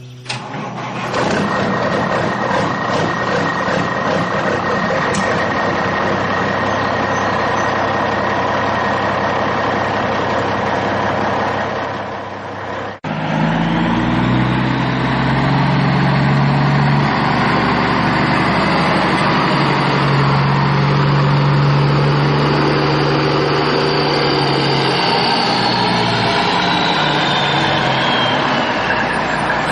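Vehicle engine sounds of construction machines. A dense, noisy stretch with many clicks runs until a sudden break about 13 seconds in. After the break, a deeper pitched engine-like tone rises and falls.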